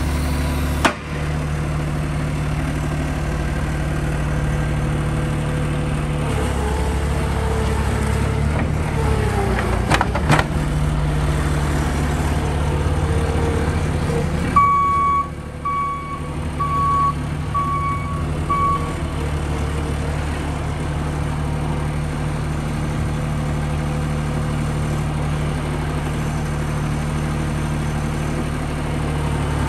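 Mini skid steer loader's engine running steadily. About halfway through, its reversing alarm gives five evenly spaced beeps. A couple of sharp knocks come in along the way.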